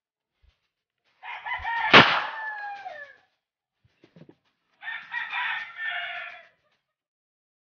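A rooster crowing twice. About two seconds in, during the first crow, a single sharp bang from a homemade alcohol-fuelled PVC marble gun firing is the loudest sound.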